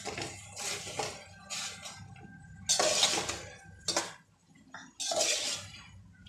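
A metal spoon stirring and scraping through cooking tomato masala in an aluminium pot, in about half a dozen short strokes, the loudest about three seconds in.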